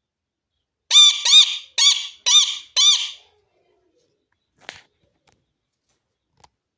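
Pet parrot giving five loud, harsh squawks in quick succession, about half a second apart, each call rising and falling in pitch. A faint click follows a little later.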